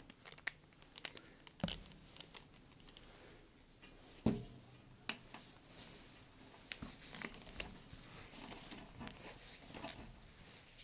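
Scattered clicks and light metal knocks of a bearing puller being handled and refitted on a vacuum cleaner motor's shaft to pull off a bearing. Two louder knocks, with a short ring, come about two and four seconds in.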